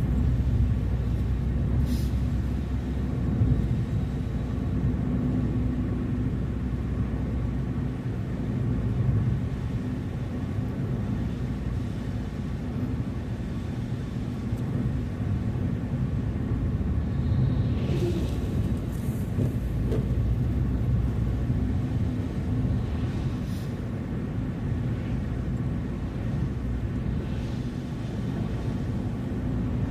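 Car driving along a road: a steady low rumble of engine and tyre noise, with a few faint clicks about two seconds in and again near eighteen seconds.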